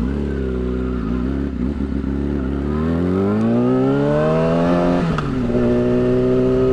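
Yamaha R6's inline-four engine through a slip-on exhaust, under way: the revs climb steadily for a couple of seconds, then drop sharply about five seconds in as it shifts up, and carry on at steadier revs.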